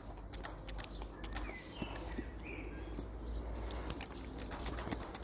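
An animal taking water at its mouth, an irregular run of quick wet clicks. A few short chirps come about two seconds in.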